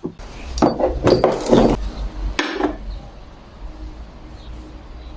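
Kitchen utensils knocking and clinking against cookware: a run of clatter in the first two seconds and one more knock about two and a half seconds in, over a low steady hum.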